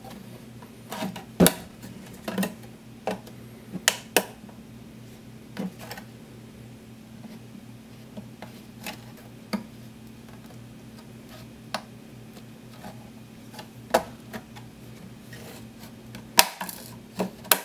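Irregular clicks, taps and scrapes of a knife blade being worked around the seam of a plastic external hard-drive enclosure, prying the glossy shell off the vented body so that its plastic snap clips pop and crack, with a few louder cracks. A faint steady low hum underneath.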